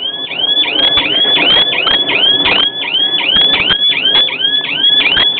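Car alarm siren going off: a rapid string of rising electronic chirps, about four a second, each sweeping up in pitch. It gets louder over the first second, with rustle and scattered knocks underneath.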